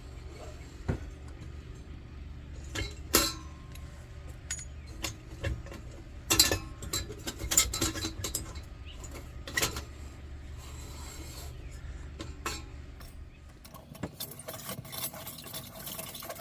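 Scattered metallic clinks and knocks of a socket and brass lantern parts being handled as a Coleman 220 lantern's valve assembly is taken apart in a vise. A steady low hum lies underneath and fades near the end.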